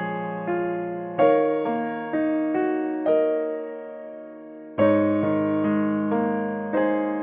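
Slow, gentle background piano music: chords are struck every second or so and left to ring and fade, with a fresh louder chord about five seconds in.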